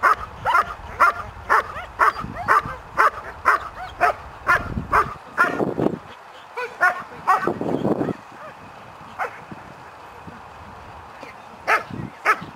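Working-line German shepherd barking repeatedly at the protection helper, about two barks a second, until about five seconds in. A man's voice follows briefly, then a few scattered barks.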